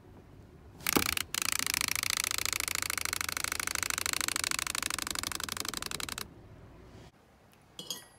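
A baby's hand-held rattle toy giving a rapid, even ratcheting clatter for about five seconds, after a single knock about a second in; it stops abruptly.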